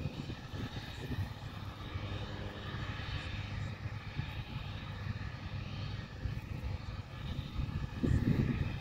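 Jet aircraft turbine engines running: a steady high whine with slowly shifting pitch over a low rumble. The rumble swells briefly near the end.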